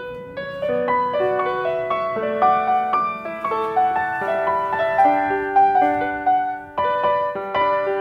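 Background piano music: a gentle melody of single sustained notes, with a short break about seven seconds in before the playing resumes.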